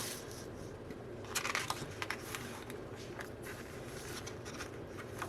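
Light rustling and clicking of album booklets and cards being handled, a cluster of it between one and two and a half seconds in.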